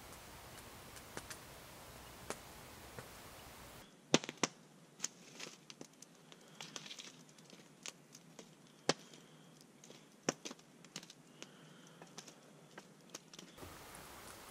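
Wood campfire crackling, with many sharp, irregular pops from the burning logs through the middle of the stretch; before and after it, only sparse faint ticks.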